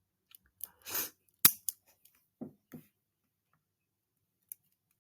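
A few scattered sharp clicks and soft knocks, with a short rustle about a second in; the loudest click comes about a second and a half in.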